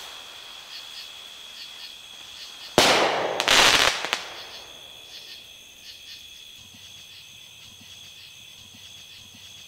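Vektor XL firework rocket bursting in the air: a sharp bang about three seconds in, then a second, rougher burst of noise that dies away about a second later.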